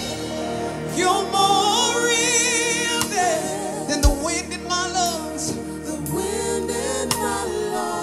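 Live gospel worship song: a woman sings the lead, with a man singing along and instruments accompanying them.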